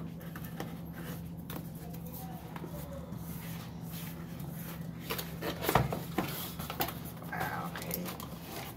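Cardboard packaging being handled: a white box slid out of its sleeve and its lid flap opened, with scraping and rustling and a sharp knock about six seconds in. A steady low hum runs underneath.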